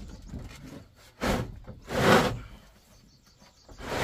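Corrugated roofing sheets scraping over wooden roof beams as they are shoved into place by hand. There are two short scrapes, about a second in and two seconds in.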